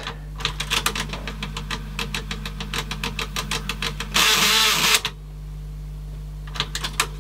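Teac CX210 cassette deck's tape transport fast-forwarding with rapid, even clicking, about eight clicks a second, from a worn plastic gear with too much play. About four seconds in there is a short loud rush of noise, then the clicking stops, leaving a low hum and two clicks near the end.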